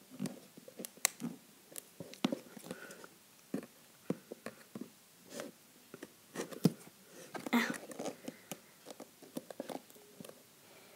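Scissors clicking and scraping at the edge of a cardboard shipping box, with scattered taps and rustles from hands handling the cardboard. The sounds come irregularly, with a sharp click a little past halfway and a short rustle soon after.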